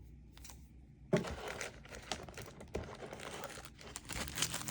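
Packaging crinkling and rustling as it is handled. It is quiet for the first second, then starts with a sharp crackle and goes on as a dense run of crackles and clicks.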